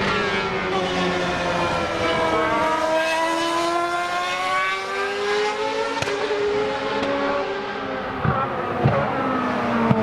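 Formula-style single-seater race car engine running at high revs, its pitch rising and falling slowly as the throttle changes. A few sharp cracks come near the end.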